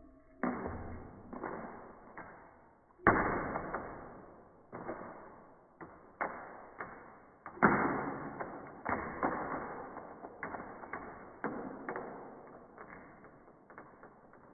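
Water splashes slowed down with the 240 fps footage: a series of sudden, muffled hits at uneven intervals, each fading away over a second or two.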